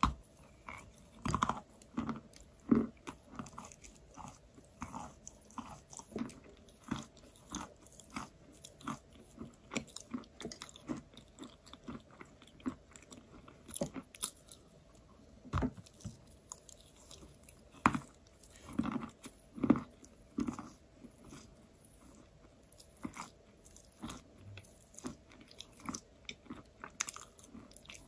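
Close-miked chewing of soft, crumbly chalk: irregular crunches as it is bitten and ground between the teeth, with a few louder bites.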